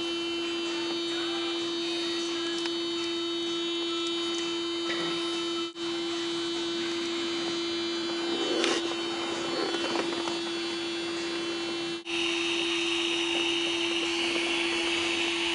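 Electric heat gun running: a steady motor hum under a blowing hiss. It cuts out briefly twice, and after the second dropout the hiss is louder.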